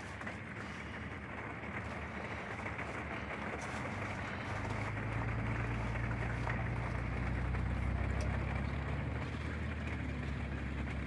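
Steady hiss of rain and water, with a low engine drone coming in about four and a half seconds in, swelling and then easing off toward the end.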